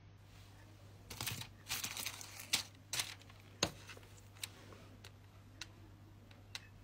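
A small plastic zip bag of diamond-painting drills crinkling as it is handled and set down on the plastic-covered canvas, with a few sharp clicks, then three faint ticks later on.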